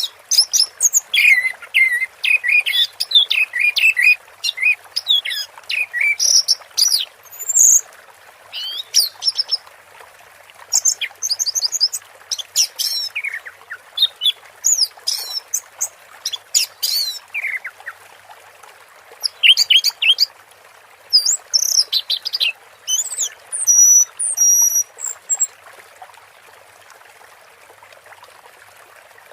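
Orange-headed thrush singing a rambling run of quick, varied whistled phrases over steady running water. The song stops about 25 seconds in, leaving only the water.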